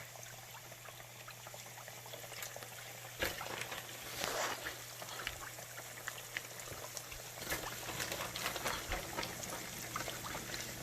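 Breaded chicken wings frying in oil in a Dutch oven pot: a steady sizzle with scattered pops and crackles, swelling briefly about four seconds in. The oil is not quite at full frying heat.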